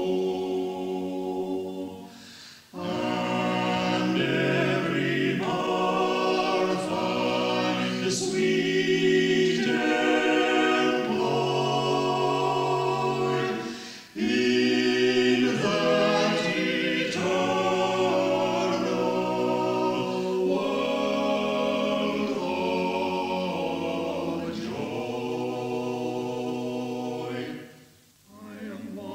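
Amateur choir singing held notes in phrases, with short breaks about two and a half seconds in and about fourteen seconds in; the singing fades out near the end. Early-1960s reel-to-reel tape recording.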